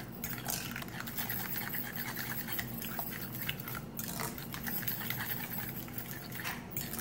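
A metal fork stirring a wet mashed-banana and egg batter in a glass bowl, with a few light taps of the fork against the glass.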